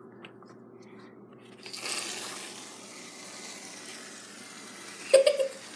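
Aerosol can of sugar-free whipped cream spraying: a hiss that starts about two seconds in, is loudest at first and tapers off over about three seconds.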